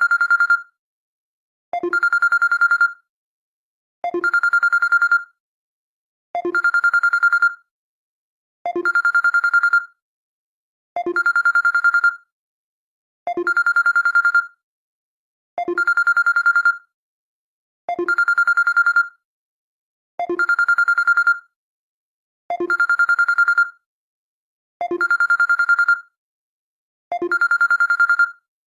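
Samsung Galaxy S21 ringtone: a bell-like phone ring with a rapid trill, sounding in short bursts of about a second that repeat evenly, roughly every two and a quarter seconds.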